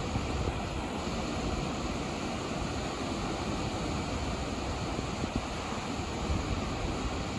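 Ocean surf: small waves breaking and washing up a sandy beach in a steady rush, with some wind noise on the microphone.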